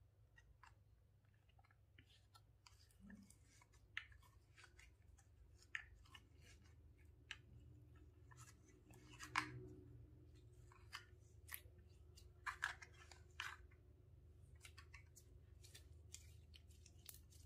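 Purple glitter slime being pulled from a plastic compartment tray and squeezed by hand: faint, scattered sticky clicks and crackles. The loudest crack comes about nine seconds in, with a cluster around twelve to thirteen seconds.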